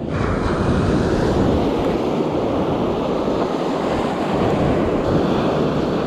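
Surf breaking and washing through the shallows, a steady rushing of waves, with wind on the microphone.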